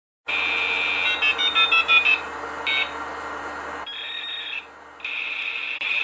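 Electronic intro sound effect: a steady high buzzing tone with a quick run of beeps at different pitches about a second in. It drops out briefly twice in the second half.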